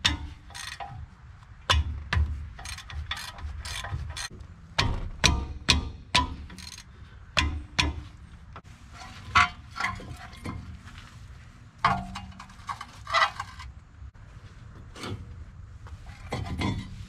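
Hand ratchet wrench clicking in short runs as bolts at a pickup's front brake caliper are turned, mixed with metal clanks and clinks of tools and parts.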